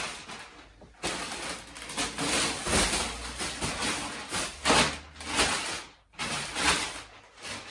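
Thin plastic packaging bags crinkling and rustling in irregular bursts as clothes are pulled out of them and unwrapped.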